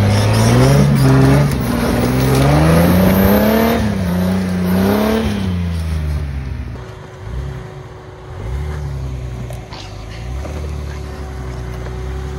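A vehicle engine revving, its pitch climbing and falling for about six seconds, then dropping back to a lower, steadier running. A thin steady whine starts about halfway through.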